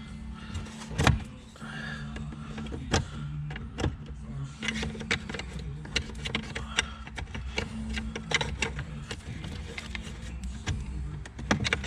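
Plastic dash trim being pried and tugged against stuck clips: a run of irregular clicks, knocks and creaks, over a steady low hum.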